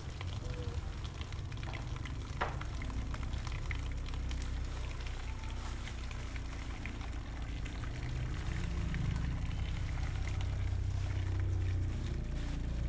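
Food frying in a pan: faint scattered crackles over a steady low rumble that grows louder in the second half, with one sharp click about two and a half seconds in.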